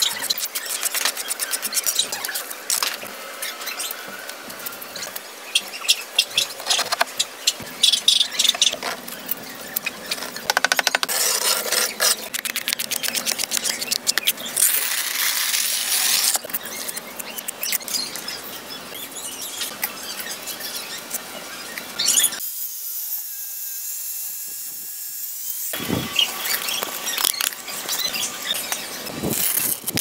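Steel masonry trowel working wet cement mortar on brick and concrete: many short scrapes and sharp taps, in uneven runs, with longer scraping strokes in between.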